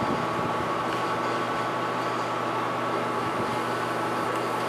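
Sharp LMV-50 turret milling machine's spindle running steadily with a high whine and a low hum, a twist drill cutting a hole in a block of 6061 aluminum.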